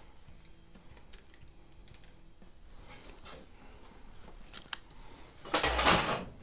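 Quiet handling noises with scattered faint clicks and taps, then about five and a half seconds in a loud rustling scrape lasting well under a second.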